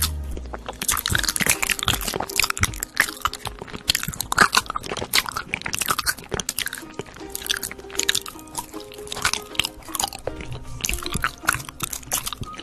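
Close-miked crunching as someone bites and chews crisp food, many irregular crackling crunches one after another, over soft background music.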